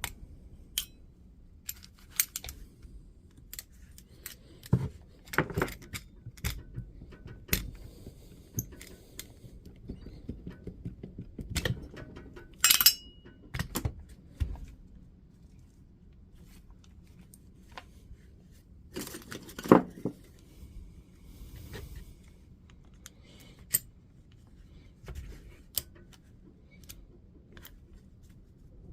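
Irregular small metallic clicks, taps and clinks of hand tools and small metal parts being handled while the spring-loaded blade release lever is worked off a DeWalt DCS355 multi-tool. There are a couple of louder clatters, about 13 and 20 seconds in.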